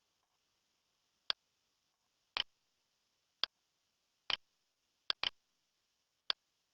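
A series of sharp, short clicks, about one a second at uneven intervals, some in quick pairs, over a faint steady hiss.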